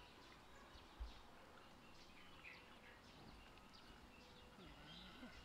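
Near silence: faint outdoor background with a few scattered distant bird chirps.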